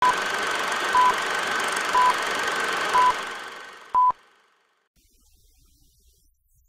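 Film-leader countdown sound effect: five short beeps one second apart over a steady hiss. The hiss fades out after the last beep, leaving near silence.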